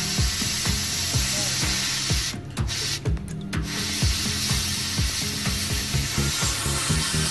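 Oxy-acetylene torch hissing as it burns a hole through a pipe, with background music running under it. The hiss drops out briefly twice, a little after two and three seconds in.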